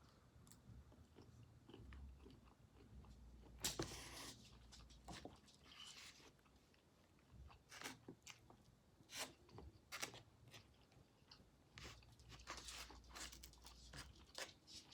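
Faint, close chewing and crunching of a mouthful of hibachi shrimp and vegetables, with short crunchy bites scattered through, the loudest about four seconds in.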